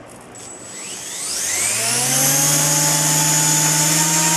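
Walkera V120D02 micro RC helicopter's electric motor and rotor head spooling up. The whine rises in pitch over the first two seconds or so, then holds steady once the rotor reaches head speed.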